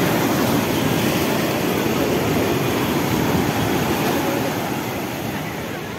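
Sea surf breaking and washing over shoreline rocks: a steady rushing noise that eases slightly near the end.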